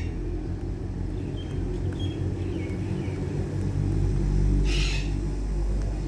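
A pet parakeet gives one short, harsh squawk about three-quarters of the way through, after a few faint chirps, over a steady low rumble that is the loudest sound throughout.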